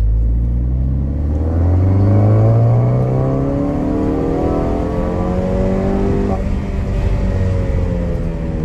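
Ford Focus ST's engine heard from inside the cabin, accelerating with its pitch rising steadily, then a sudden drop in pitch about six seconds in, after which it runs on more evenly. The car is on a newly replaced clutch.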